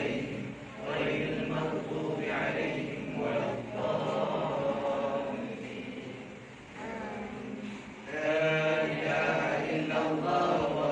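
A group of voices chanting a Quran recitation together in unison, phrase by phrase, with a brief dip about six and a half seconds in.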